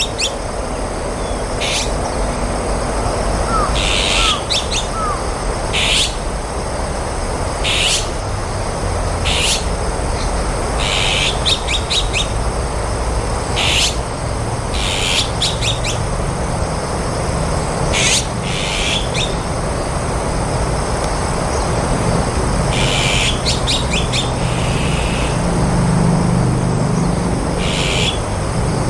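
Azure-winged magpies giving harsh, grating calls, one every second or two, some in quick runs of several notes, over steady low background noise.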